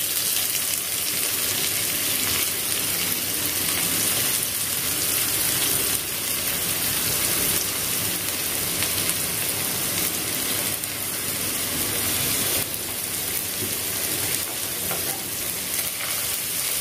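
Garlic frying in oil in a pan, with chopped onions tipped in partway and then stirred with a metal slotted spatula: a steady sizzling hiss.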